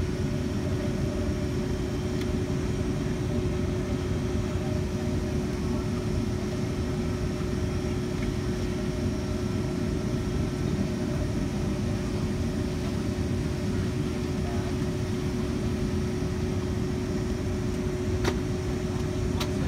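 Steady cabin drone of a Boeing 757-200 with its engines at idle on the ground, a constant low rumble with a steady hum through it. Two light clicks near the end.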